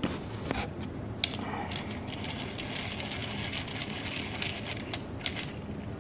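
Small metal clicks and rattles from a Pony corner clamp being handled as its threaded screw is wound by the T-handle. The clicks are scattered, with a sharper one about a second in and another near the end.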